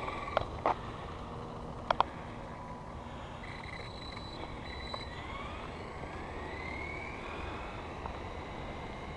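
Stock Arrma Typhon 3S RC buggy's brushless motor whining as it accelerates away at full throttle on a speed run. The whine rises in pitch twice in the second half over a low steady rumble, with a few sharp clicks in the first two seconds.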